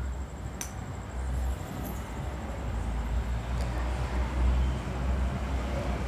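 Stiff plastic craft wire being handled and pushed through woven knots, with faint rustling and a sharp click about half a second in, over a steady low rumble.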